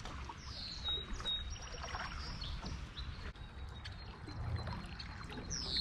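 Canoe paddles dipping and pulling through the water, with water trickling and splashing off the blades. A few high chirps sound about half a second in and again near the end.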